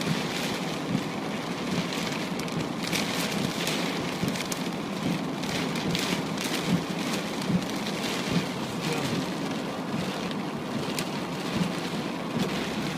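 Steady rain falling, with many separate sharp drop hits on a hard surface close by.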